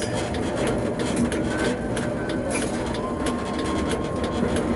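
Tatra K2P tram running along the track, heard from the driver's cab: a steady rumble with light clicks. A thin steady whine comes in about three seconds in.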